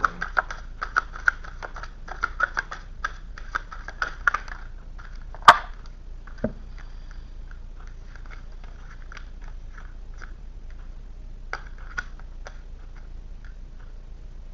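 Tarot cards being shuffled and handled: a fast run of crisp card clicks and flicks for about four seconds, one sharp snap a little later, then occasional light card sounds.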